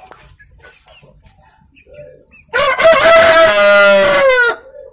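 A rooster crowing once, a single crow of about two seconds that starts about halfway in, with a long held final note that falls away at the end. Soft hen clucks come before it.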